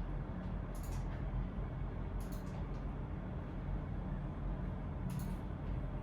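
Steady room ambience of a shared workspace with a low hum, broken three times by short, light clicks.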